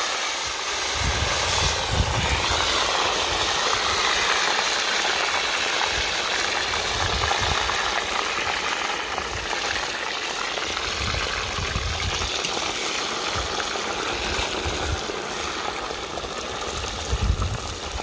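Hot oil in a kazan sizzling and bubbling hard as a fresh batch of raw potato fries cooks in it.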